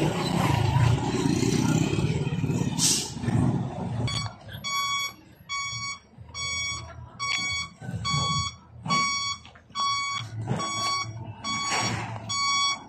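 Ten-wheeler dump truck's diesel engine running as it backs up, with a short hiss about three seconds in. From about four seconds its reversing alarm beeps steadily, about one and a half beeps a second.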